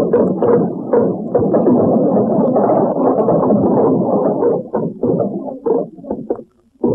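Music, dense and busy at first, thinning into a few short separate sounds over the last two seconds.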